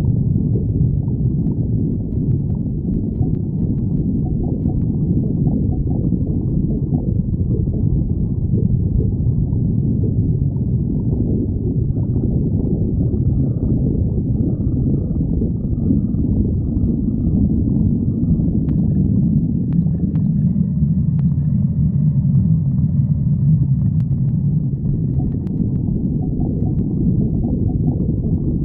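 Stomach growling from hunger: a continuous low rumbling and gurgling, with faint thin higher tones about halfway through.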